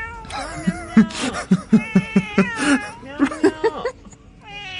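A voice in a quick run of short, pitched pulses, about four or five a second, in a rhythm like laughter, stopping about a second before the end.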